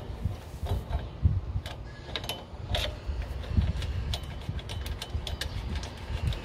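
Light, irregular metallic clicks and ticks from a rear wheel hub mounting bolt being turned in by hand, the last of four before they are tightened with a tool, over a steady low rumble.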